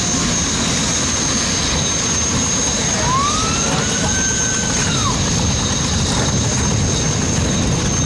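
Twin Lycoming T53 turboshaft engines of an MTI powerboat idling: a steady low rumble with a constant high-pitched turbine whine on top. About three seconds in, a brief tone rises, holds and falls away.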